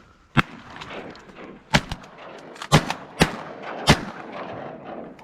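A volley of shotgun blasts from several duck hunters firing at an incoming flock: about five loud shots, irregularly spaced, over four seconds.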